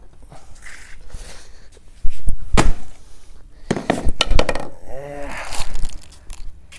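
An axe chopping a green coconut open on a concrete floor: several heavy blows, the first about two seconds in and more around four seconds in.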